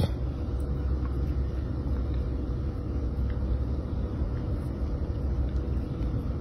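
A steady low rumble with a faint steady hum above it, unchanging throughout.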